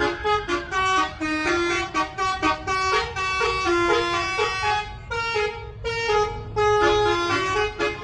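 Bus telolet horn, a set of multi-note air horns, playing a quick tune of short honked notes, several pitches sounding together, with a few brief pauses.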